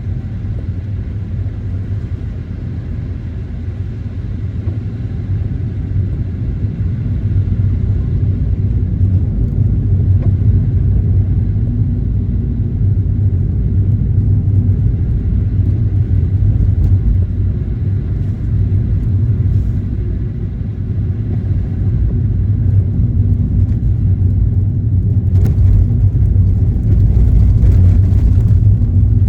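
Car driving on the road: a steady low rumble of engine and tyres that grows somewhat louder as it goes, with a few faint clicks near the end.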